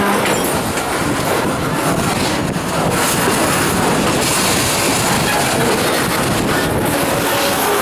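ND&W freight train rolling along badly maintained jointed track, its wheels clattering steadily over the rails.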